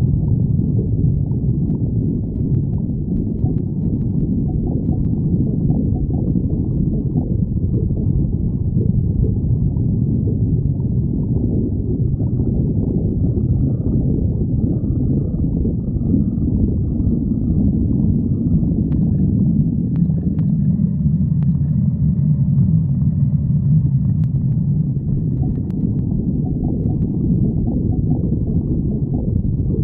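A stomach growling: a loud, continuous low rumble, with a faint higher tone joining in for a few seconds past the middle.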